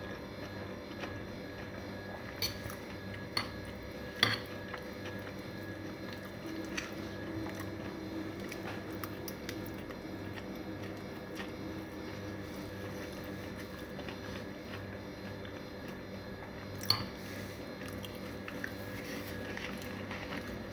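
Close-up chewing of noodles, with a few sharp clinks of a metal fork against a ceramic plate, the loudest about four seconds in and another near the end. A steady low hum runs underneath.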